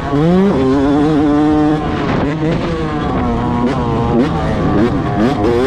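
Yamaha YZ250 single-cylinder two-stroke motocross engine revving hard under riding load. Its pitch climbs sharply just after the start and holds high for over a second. It then drops and rises again and again as the throttle is rolled on and off.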